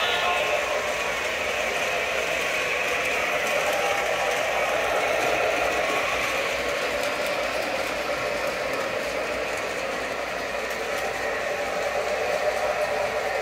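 Several O-gauge model trains running on three-rail track: a steady whir of motors and gears with the clatter of wheels over the rails.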